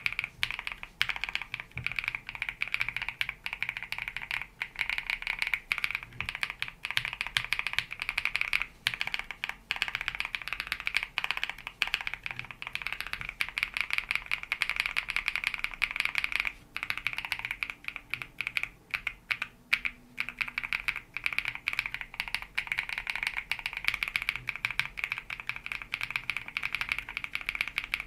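Typing sound test on a mechanical keyboard fitted with Sarokeys BCP linear switches (black-housed, 5-pin, factory pre-lubed, 57 g bottom-out force). It is a fast, continuous run of keystrokes with no pauses.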